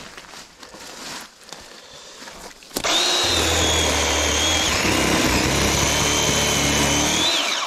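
Gas chainsaw run up to full throttle about three seconds in and held at high speed, its pitch dipping slightly as it works, then let off near the end; quieter and uneven before that.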